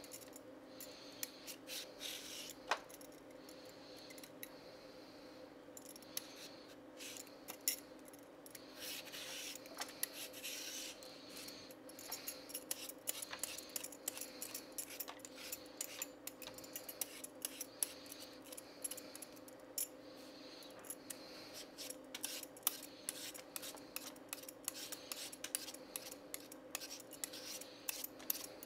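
A carrot being peeled with a metal vegetable peeler: short, repeated scraping strokes, sparse at first and coming quickly one after another from about halfway on, over a faint steady hum.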